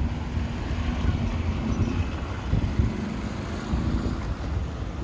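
Wind rumbling on the microphone over steady road-traffic noise, with a faint engine hum that comes and goes.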